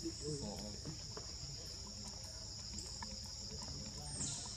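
Steady, high-pitched insect chorus droning without a break, with a brief swell near the end.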